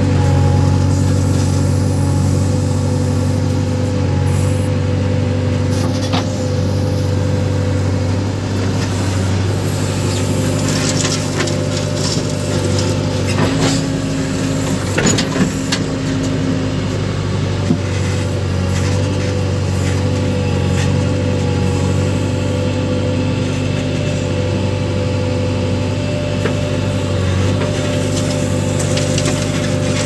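JCB backhoe loader's diesel engine running steadily as the backhoe digs and loads soil, heard from the operator's cab. Scattered clanks and knocks come through around the middle.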